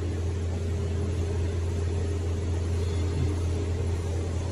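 Steady low hum of an electro-hydraulic press brake's hydraulic pump motor running idle, with a few fainter steady tones above it.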